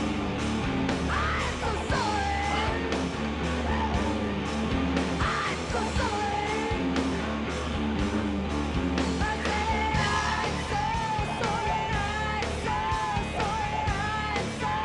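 Rock song on the soundtrack with a steady drum beat, bass and guitar, and a singing voice that comes in strongly about two-thirds of the way through.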